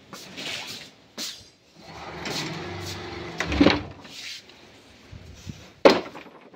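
A few sudden knocks and bangs, the loudest and sharpest one near the end, with a faint low hum between them.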